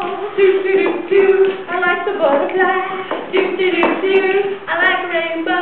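Girls singing a song together, with hand claps.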